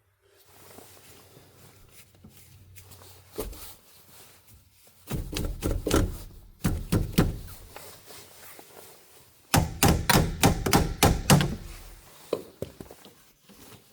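A run of knocks and thumps on hard material, coming in two busy bursts, one about five seconds in and one around ten seconds, with a few single knocks between and after.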